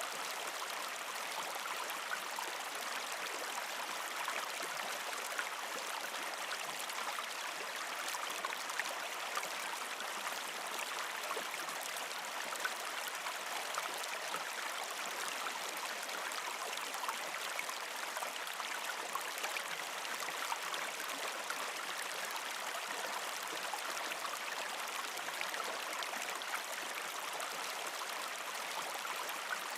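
Water of a small stream flowing over rocks, a steady rushing with small splashes.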